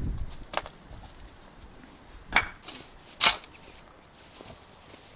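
Three short, sharp clacks of hard objects knocking together during building work on the porch steps. They fall about half a second, two and a half seconds and three and a quarter seconds in, and the last is the loudest.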